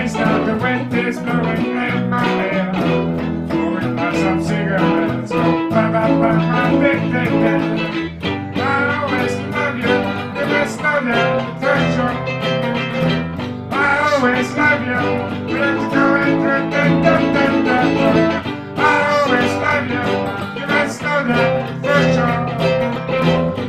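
Raw bluesy music led by guitar.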